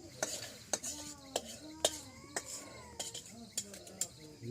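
Metal spoons and dishes clinking: a string of sharp, uneven clinks as food is served or stirred in metal pots and plates.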